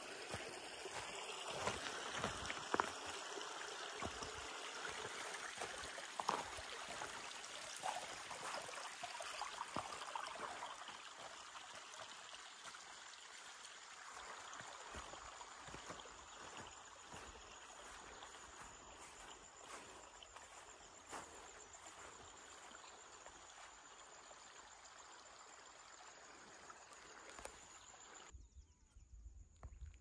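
Shallow river water flowing and trickling, a faint steady rush that slowly weakens and then drops away shortly before the end, with a few scattered small knocks.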